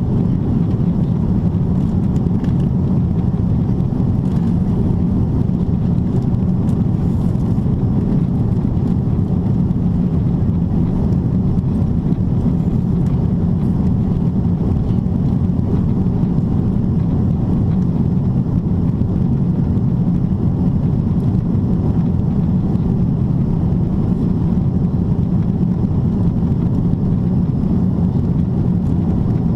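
Cabin noise inside a Boeing 777-300ER airliner descending from cruise: a steady low rumble of engine and airflow noise that does not change.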